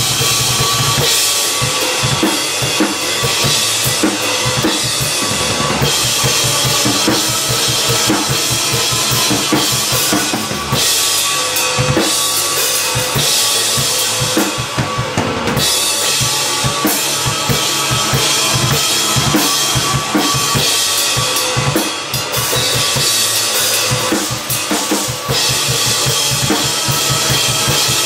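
Acoustic drum kit played with sticks: a steady groove of bass drum and snare under washing cymbals, over a looped guitar part.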